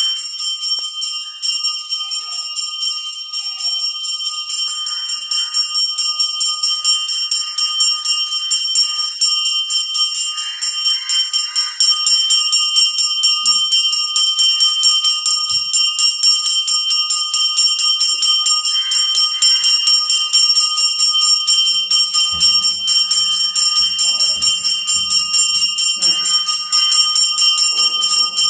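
Temple puja bell rung continuously with rapid strokes, a steady high-pitched metallic ringing that grows louder about halfway through. A few low thuds come in near the end.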